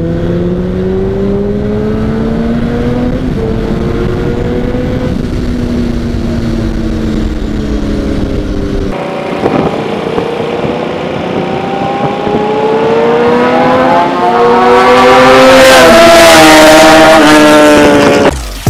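600cc inline-four sportbike engine accelerating through the gears, heard from onboard with wind buffeting the microphone; the pitch rises, dips at a gearchange a few seconds in, then climbs again. About halfway it cuts to a roadside view: a group of sportbikes approach with rising engine notes and pass loudly near the end.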